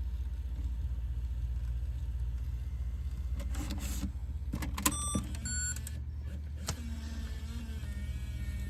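Camcorder tape deck's transport motor running with a steady low whir, while a tape that plays back only blue screen and no audio is run through it. About five seconds in come a few clicks and short electronic beeps.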